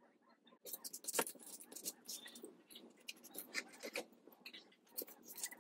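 Paper rustling and scraping as a glued paper flower is pressed and rubbed down onto a paper tag with a cloth, with scattered light taps and clicks. It starts about half a second in.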